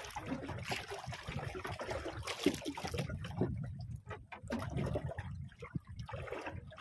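Sea water lapping and trickling against the hull of a small fishing boat, in irregular small splashes.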